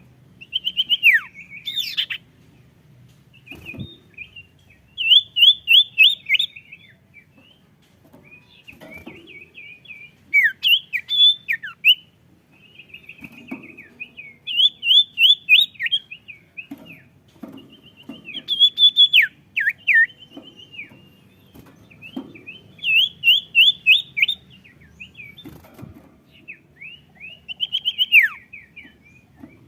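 A songbird, the bird sold in Indonesia as the 'sirtu', singing in its full prolific form. It sings loud phrases every few seconds: quick runs of sharp repeated notes and steep downward whistles.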